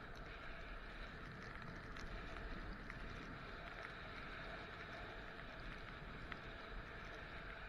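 Steady rushing hiss of skiing downhill: skis sliding over snow, with a low rumble of wind on the camera microphone and a few faint ticks.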